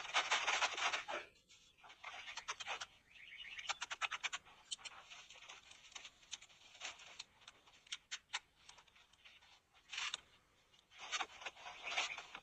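Scratching and rustling noises in rough bursts, strongest near the start and again near the end, with scattered sharp clicks in between.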